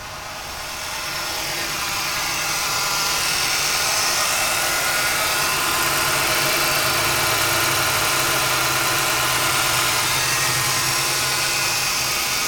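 1998 Ford Taurus engine idling with a misfire on cylinder 1 (code P0301), getting louder over the first few seconds and then steady. The owner takes the uneven running heard from the exhaust for the miss, and suspects a bad injector or a stuck lifter, since the cylinder has good spark.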